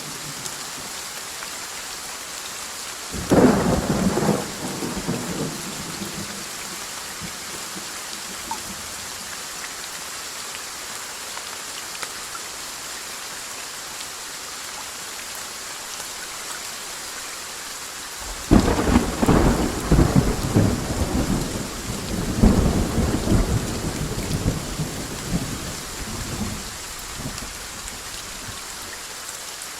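Steady rain with two claps of thunder: a short sudden crack and rumble about three seconds in, and a longer rolling rumble that starts about two-thirds of the way through and dies away in waves.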